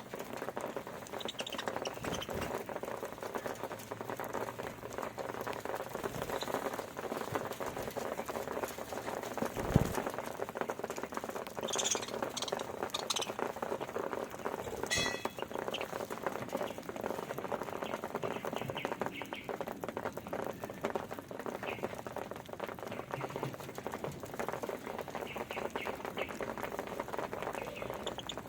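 A flock of budgerigars with grain: a constant fine crackle of pecking at seed, with short high chirps here and there. One low thump comes about ten seconds in.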